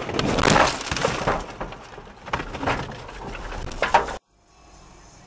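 A car crashing off the road into trees and bushes: crunching and cracking of branches with breaking glass, loudest at first and easing off, with a last sharp crack about four seconds in.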